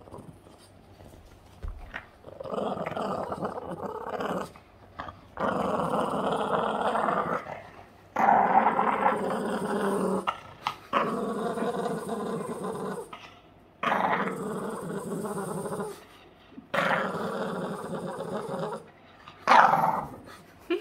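Boston terrier growling in play: about seven long growls of roughly two seconds each, with short breaks between them. It is playful growling, not aggression.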